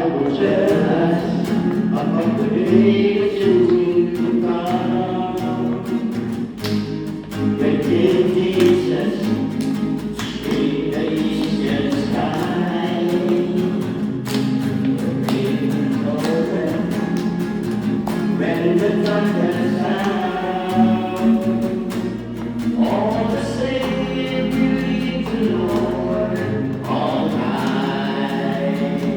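Gospel music: a choir singing with instrumental accompaniment, with guitar strumming.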